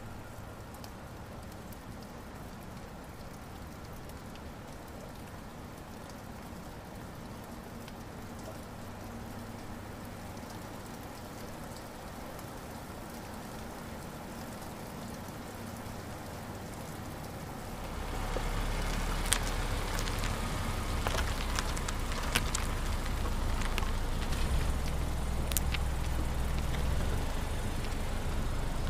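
Steady rain-like hiss over a faint low hum. About 18 seconds in, a car engine's low rumble comes in and carries on, louder, with a few sharp ticks over it.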